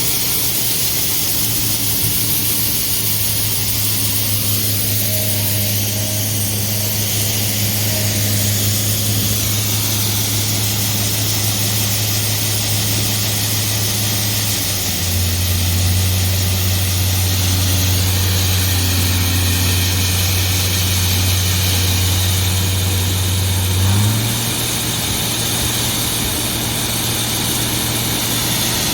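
Heavy engine of harvest machinery running steadily under a constant high hiss. Its pitch drops about halfway through and climbs back near the end, where there is a brief swell in loudness.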